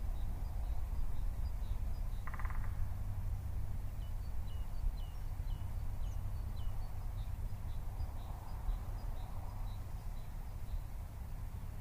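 Forest ambience: a steady low rumble under small birds chirping, with short high notes repeating through most of the stretch and one brief buzzy call about two seconds in.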